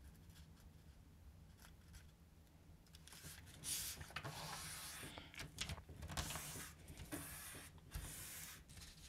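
An A4 sheet of paper is folded in half and the crease pressed flat, making soft, irregular rustling and rubbing strokes. The strokes start about three seconds in, after a near-silent pause.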